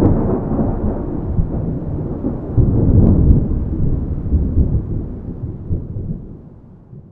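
A deep rumble of thunder, swelling about three seconds in and then fading away near the end.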